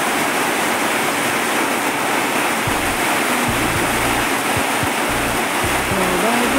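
Heavy rain pouring onto a corrugated metal roof and the foliage around it, a dense, steady hiss.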